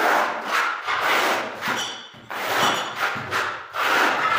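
Notched steel trowel scraping and combing tile adhesive across a concrete floor in repeated strokes, with a short pause about two seconds in.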